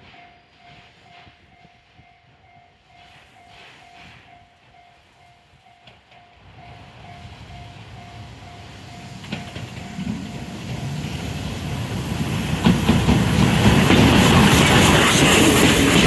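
Level-crossing alarm pulsing faintly as the JNR C10 8 steam tank locomotive approaches; the train's running noise builds from about six seconds in. From about twelve seconds the locomotive and its vintage passenger coaches pass close by, loud, with wheels clattering over the rail joints.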